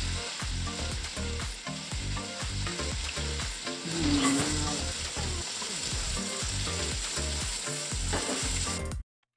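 Cooking oil sizzling steadily in a frying pan, with an even low pulsing beneath it and a brief hum about four seconds in. It cuts off abruptly near the end.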